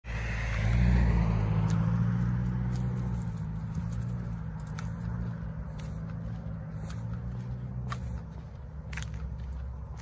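A car passing on the road, loudest about a second in and slowly fading as it goes away. Footsteps on the pavement tick now and then.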